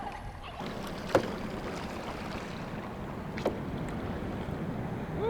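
Kayak paddling on a river: a steady wash of water and wind, with two short sharp knocks, about a second in and again a couple of seconds later.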